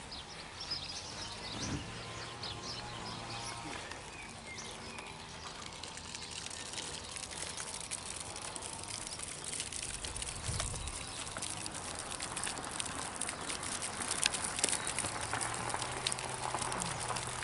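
Birds chirping and calling against a steady outdoor background, the chirping growing busier in the second half.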